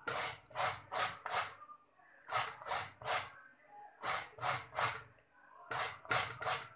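Bottle gourd being grated into shreds on a hand grater: rasping strokes in quick runs of three or four, with short pauses between the runs.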